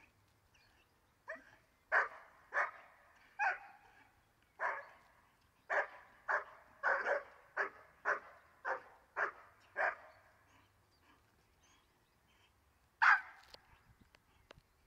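Young German Shepherd barking at the helper in protection-work training: a quick run of about fourteen barks, roughly two a second, over the first ten seconds, then a pause and one last, loudest bark near the end.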